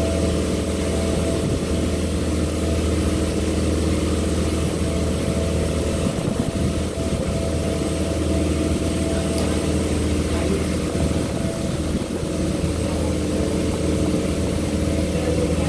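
Water taxi's engine running steadily while the boat cruises: a constant low drone that holds one pitch.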